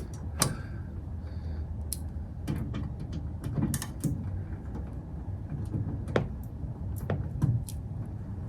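Scattered light clicks, taps and knocks of a plastic mud flap being handled and pushed into place against its mounts, over a low background hum.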